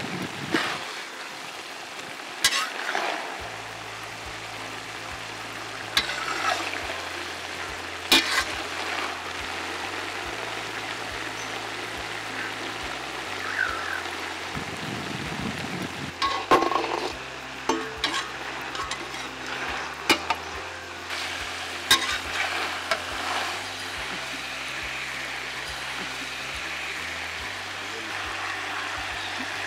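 Cauliflower and peppers frying in a wide aluminium wok, a steady sizzle, with a metal spatula scraping and clinking against the pan every few seconds as the vegetables are stirred.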